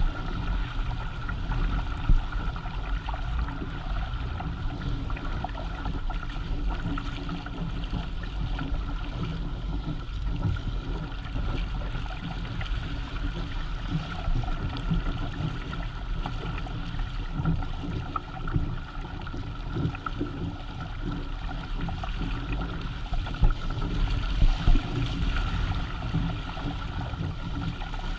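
Water rushing and splashing along the hulls of a Hobie Tandem Island sailing kayak moving under sail, over a steady low rumble, with a few louder splashes about two seconds in and again near the end.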